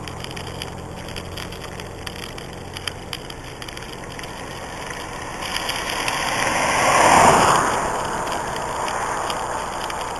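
A car approaches and drives past on the road, its tyre and engine noise swelling to a peak about seven seconds in and then falling away. Under it, the steady rolling of a kick scooter's wheels on asphalt with a few light rattles.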